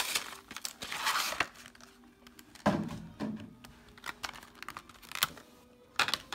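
Foil booster-pack wrappers crinkling and rustling as they are handled and gathered up, in several bursts with sharp clicks between.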